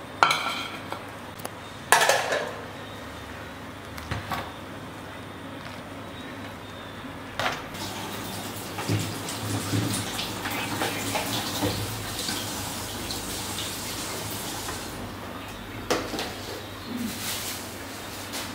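Metal ladle clinking against an aluminium stockpot of soup several times, then several seconds of liquid sounds from the soup, and a couple more metal clinks near the end.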